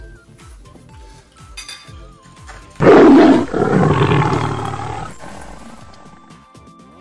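A sudden loud roar, like an edited-in big-cat sound effect, about three seconds in, fading away over the next two seconds, over quiet background music with a steady beat.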